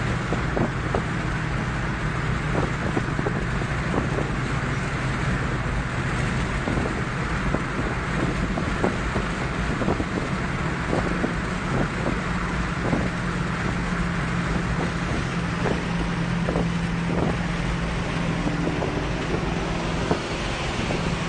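Cars driving at highway speed: a steady engine hum and road and tyre noise, with wind rushing past the microphone.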